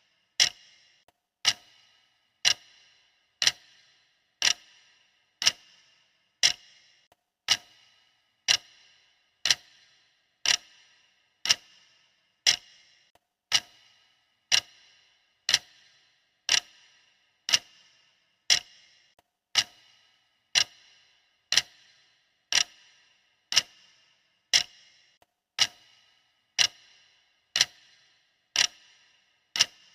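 Clock ticking sound of a countdown timer: one sharp tick a second, evenly spaced, each with a short ringing tail.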